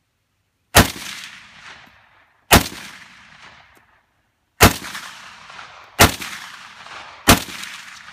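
Arsenal AK-47 rifle fired semi-automatically, five single shots, each followed by an echo that fades over about a second. The first shots come about two seconds apart, and the last ones quicken to about a second and a half apart.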